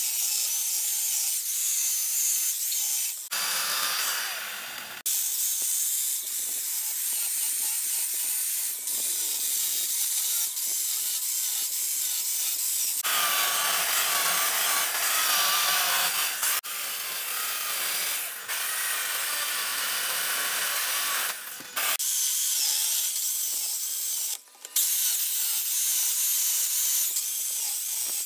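Chainsaw cutting and carving into a block of wood, the chain rasping through the grain. The sound changes suddenly several times between stretches of cutting.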